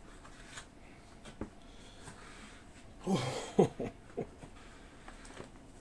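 Quiet handling of the kit's paper booklets and parts, with soft rustles and a few light clicks. About three seconds in, a short breathy vocal sound with a brief bending pitch rises above the handling.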